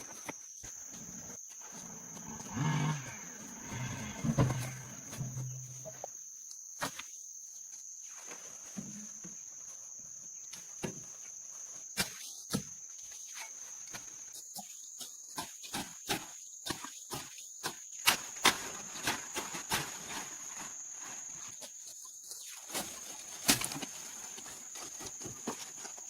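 A steady high-pitched insect chirr, with many short clicks and taps scattered through it.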